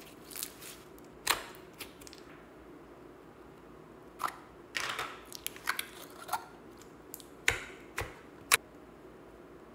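Thick slime being squeezed, tipped out of a jar and pressed by hand, making scattered short wet clicks and pops, about a dozen in all.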